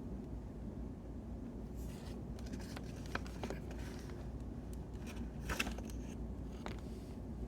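Steady brown noise, a low rumbling hiss. From about two seconds in, a few soft rustles and clicks of desk work with paper come and go, the loudest a little after the middle.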